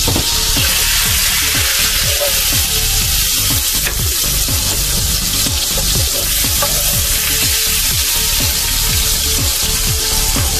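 Butter sizzling and bubbling as it melts in a nonstick frying pan, stirred and pushed around with a wooden spatula, over background music with a steady beat.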